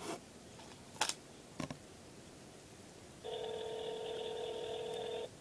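A phone's ringback tone over the iPhone's speakerphone: one steady two-second ring starting past the halfway point, meaning the outgoing call is ringing unanswered. A sharp tap about a second in and a softer double tap shortly after.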